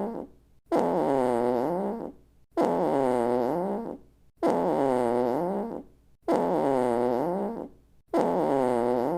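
Comic fart sound effect played over and over, about one every two seconds, five times. Each is a buzzy, pitched toot of just over a second that starts suddenly, dips in pitch and rises again, then fades out.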